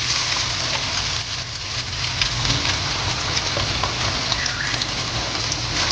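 Chunks of meat frying in hot oil with browned onions in a wok: a steady, dense sizzle, with a low hum underneath.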